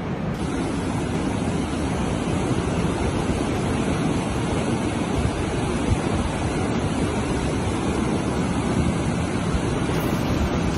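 Flash-flood torrent of muddy water rushing down a wadi: a steady, dense rushing noise.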